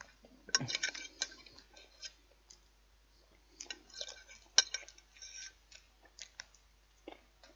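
Knife and fork clicking and scraping on a plate as food is cut, in two clusters of short sharp clicks: about half a second in and again around four seconds in, with a few single ticks between.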